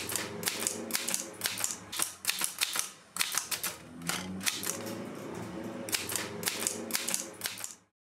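Corona portable typewriter being typed on: a quick, irregular run of key strikes, the typebars clacking against the paper, with a short lull about three seconds in. It stops just before the end.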